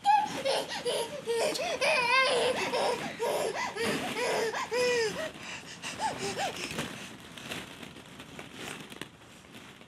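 Toddlers squealing and laughing while hollow plastic pit balls clatter and rustle against each other in an inflatable ball pit. The little voices stop after about six seconds, leaving only the balls rattling.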